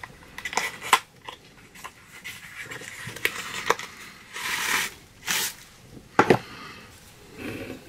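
Items and packaging being handled while unboxing: scattered clicks and knocks of objects set down and picked up, with two short crinkling, tearing rustles of wrapping a little past halfway and a louder knock soon after.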